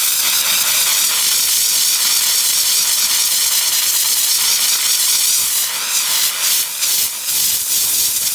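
A handheld steam cleaner jets steam through its horsehair brush nozzle onto the floor, making a steady, loud hiss. A little before the end the hiss breaks off briefly a few times.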